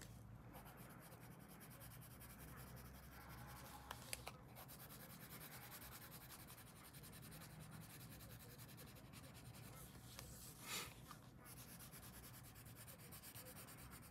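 Faint scratching of a colored pencil shading on paper, with two small clicks about four seconds in and a short, louder scratch near eleven seconds in.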